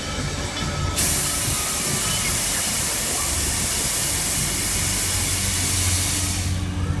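Loud hiss of compressed air escaping from a Hurricane Jets funfair ride's pneumatic system. It starts sharply about a second in and fades out near the end.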